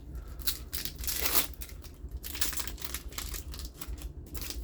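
A trading-card booster pack's wrapper crinkling and rustling in the hands, with a longer, louder rustle about a second in and a run of quick short rustles in the second half.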